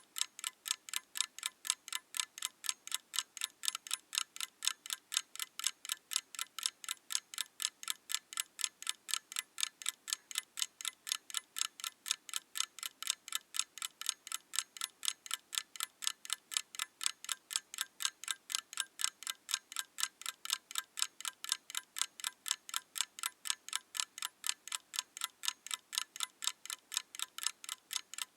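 Mechanical clock ticking: crisp, even tick-tock at a steady pace of about three ticks a second.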